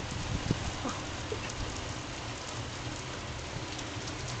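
Heavy rain falling steadily in a downpour, with a few faint taps in the first second or so.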